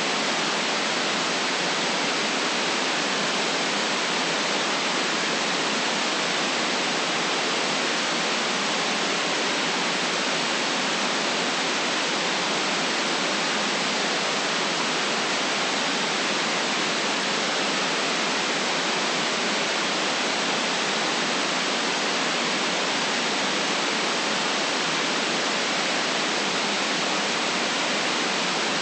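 Steady, unchanging synthetic white noise, an even hiss with no low rumble and nothing above a sharp upper limit.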